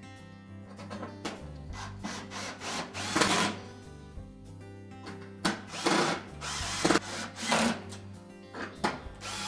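Power drill driving the sheet-metal retaining screws into the oven's back panel in several short runs, over background music.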